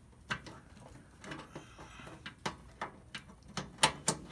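Plastic clicks and knocks of a replacement dryer start switch being worked by hand into its slot in the sheet-metal frame of a Kenmore electric dryer, about half a dozen sharp clicks with the loudest near the end.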